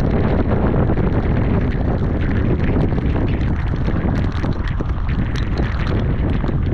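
Storm wind gusting hard across the microphone, with heavy rain spattering onto the water and the kayak in a dense run of sharp drop ticks.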